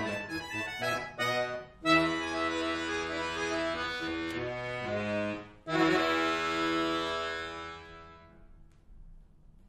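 Button accordion (bayan) playing a quick passage, then a held chord, a brief break and a loud final chord that is held and fades away about three seconds later, closing the piece.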